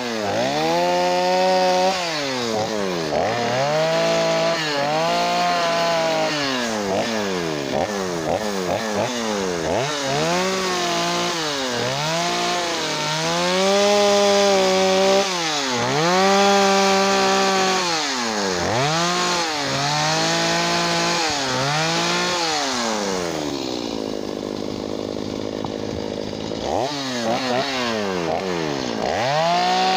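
Stihl two-stroke chainsaw cutting into wood during carving, its engine revved up and let back down again and again as the bar bites and comes out of the cut. About three-quarters of the way through it drops to a steady idle for a few seconds, then revs up again.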